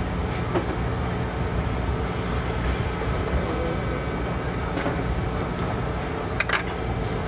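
Steady low rumble of street ambience, with a few light clicks or taps.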